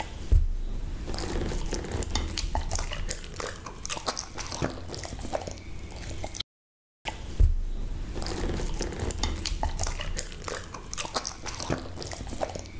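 Husky chewing dragon fruit: wet, irregular smacking and clicking of the jaws and tongue, broken by a brief dead silence about halfway through.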